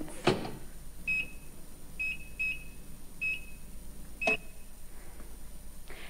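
Sharp microwave oven's touch-pad controls beeping as the pads are pressed to set the cooking: five short high beeps at uneven intervals, the last one louder and with a sharp click about four seconds in.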